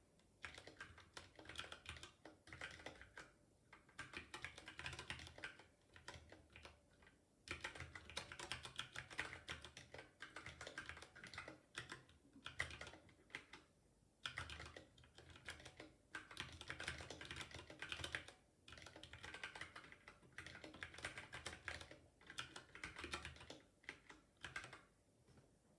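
Typing on a ZSA Moonlander split keyboard with unlubricated Cherry MX Brown tactile switches and no rubber O-rings: fast runs of key clacks with short pauses between them. Each keystroke bottoms out with a low thud under the click.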